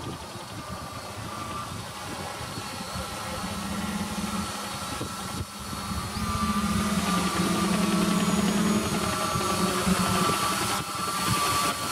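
A toy quadcopter running with a steady, engine-like hum that grows louder, its pitch settling into a steady drone from about four seconds in.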